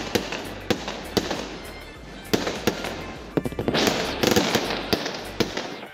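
Fireworks display: a string of sharp bangs from bursting shells, then about four seconds in a dense crackling hiss as many effects go off at once, with a few more bangs before it thins out near the end.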